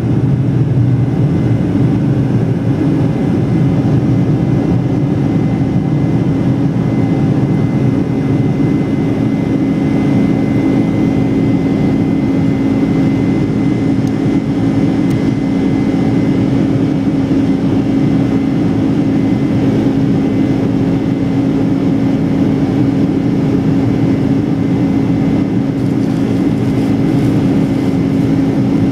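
Cabin noise of a Boeing 747-400 in flight, heard from a window seat beside the wing: the steady low drone of its GE turbofan engines and rushing air, with a faint high whine above it.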